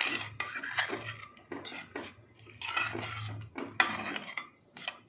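Steel spoon stirring thick dalma (lentil and vegetable stew) in a metal pressure cooker pot, scraping and clinking against the pot in irregular strokes, with one sharper clink about two-thirds of the way through.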